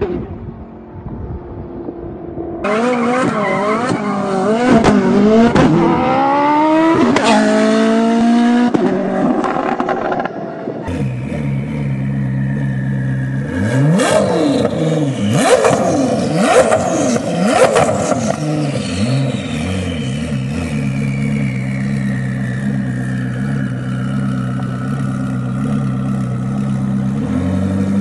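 Koenigsegg Jesko's twin-turbo V8 under hard acceleration, its pitch climbing and dropping back with each quick gear change. About ten seconds in it switches to the car idling with a burst of sharp throttle blips in the middle, then settling back to idle under a high whine that falls slowly in pitch.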